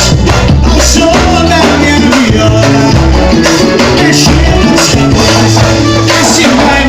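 Pagode samba music played by a band: bass, shakers and percussion keeping a steady rhythm under melodic lines.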